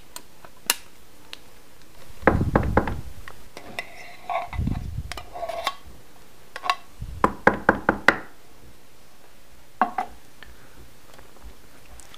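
A tin can of condensed cream of mushroom soup being emptied into a plastic mixing bowl: runs of quick knocks as the can and spoon are worked against each other and the bowl, with a dull thud about halfway through as the soup drops in.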